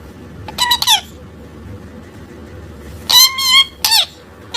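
Parrot giving high, squeaky calls with wavering pitch: a short one about half a second in and a longer one about three seconds in.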